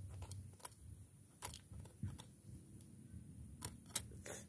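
Knife scraping and cutting small fish on a wooden plank: a few faint, scattered clicks and scrapes.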